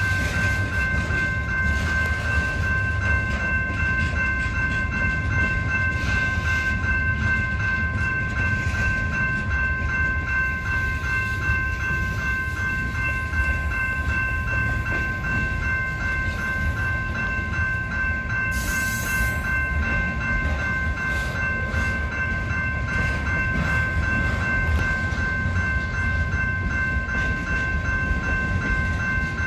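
General Signals Type-2 electronic crossing bell ringing in a rapid, steady, even rhythm while a freight train of loaded flatcars rolls through the crossing with a continuous low rumble. A brief hiss cuts in about two-thirds of the way through.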